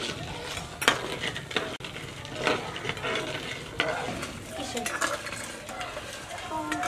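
Metal spoon stirring and scraping around a metal pan of heating sugar syrup, with scattered sharp clinks against the pan.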